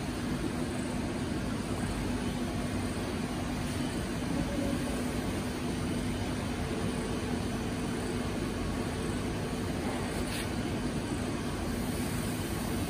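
Steady noise of a factory glazing line's machinery running, with a low constant hum underneath. A single short knock comes about ten seconds in.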